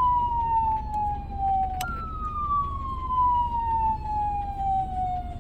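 Jiyu LS-100 ambulance electronic siren sounding a slow falling tone. About two seconds in it jumps back to the top with a click and glides down again.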